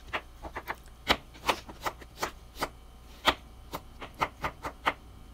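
Kitchen knife cutting carrot into thin strips on a cutting board: a quick, irregular run of sharp knocks, about three a second.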